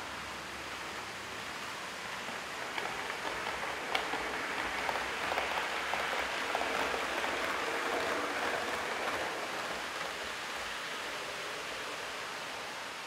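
Model container freight train running along the layout track: a rushing rattle of many small wheels with fine rapid clicks. It swells as the wagons pass close by, with a sharp click about four seconds in, and eases off toward the end.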